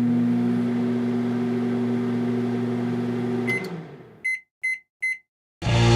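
Microwave oven running with a steady electrical hum. It beeps once as it stops, the hum dies away, and three short beeps mark the end of the cooking cycle.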